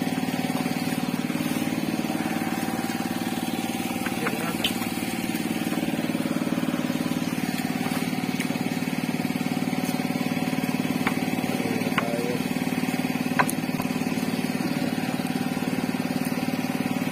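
A small engine running steadily on a fishing boat, with a few sharp knocks over it.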